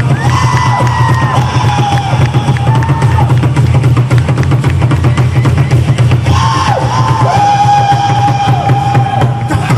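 Pre-Hispanic dance music: fast, dense drumming on deep drums, over which a wind instrument holds high notes that dip and slide in pitch. The drumming stops right at the end.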